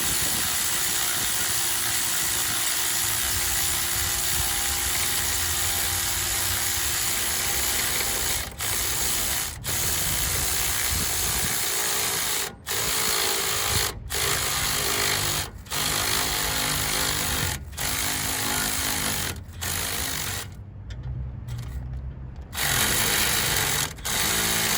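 Power impact gun (impact wrench) running a nut in long bursts, with the trigger let off briefly several times and a short quieter spell near the end.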